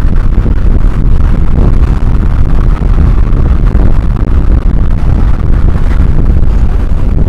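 Harsh noise wall: a loud, unbroken wall of distorted noise, heaviest in a deep rumble, with no rhythm or pitch.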